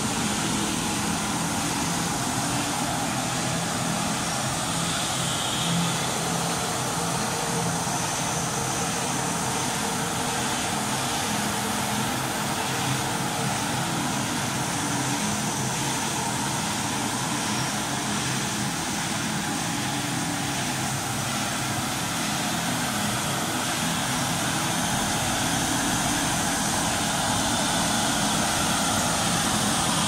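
Vertical flat-glass washing machine running: a steady, even mechanical rush with a faint low hum underneath.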